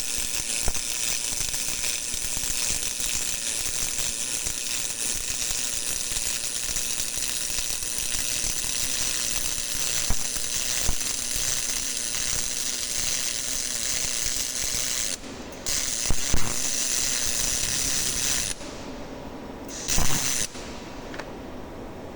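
MIG (GMAW) welding arc crackling steadily as wire is fed into the weld. It breaks off briefly, runs again for a few seconds, stops, and gives one more short burst near the end.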